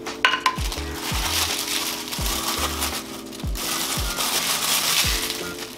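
Thin plastic wrapping bag crinkling and rustling as it is handled and pulled open, over background music with a regular beat.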